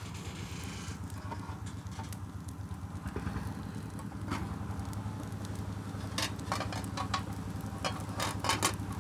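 Coconut-leaf fire in a wood-burning stove crackling and popping, with scattered sharp cracks that bunch together about six seconds in and again near the end, over a low steady hum.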